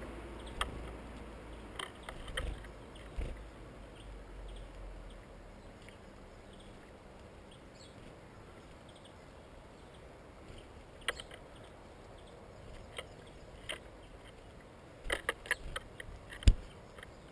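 Scattered sharp taps and clicks of birds feeding at a tube seed feeder as they land on the perches and peck seed at the ports. The taps come in a quick cluster about fifteen seconds in, followed by one louder knock. A low background rumble fades out over the first few seconds.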